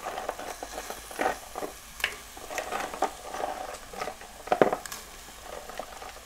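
Raw crab pieces going into a clay pot of frying masala, with irregular soft knocks and clatter against the pot and ladle over a faint sizzle; the loudest knock comes about four and a half seconds in.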